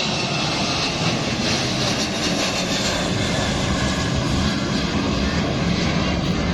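Engine noise of an airplane that has just taken off, a loud, steady rushing sound.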